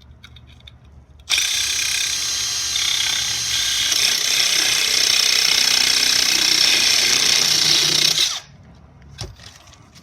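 A drill spinning a cut-down grinding disc as a blade, cutting through a copper water pipe. The loud, steady grinding starts suddenly about a second in and cuts off after about seven seconds.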